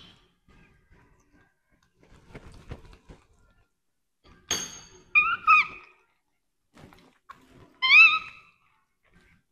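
A baby macaque's short, high calls, each rising in pitch: two in quick succession about five seconds in, and a louder one near the end. Before them come a few light knocks and one sharp click.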